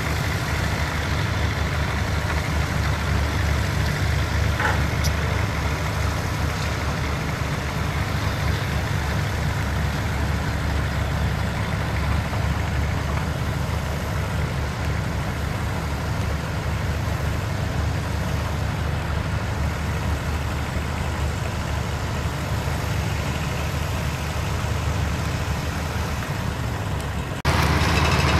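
Diesel engines of heavy construction machinery running steadily with a deep drone, with a brief squeal about five seconds in. The engine noise gets louder just before the end.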